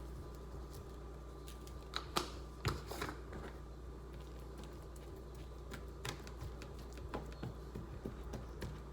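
Light clicks and taps of seasoning containers and utensils being handled while a steak is seasoned, with a few louder knocks about two to three seconds in, over a steady low hum.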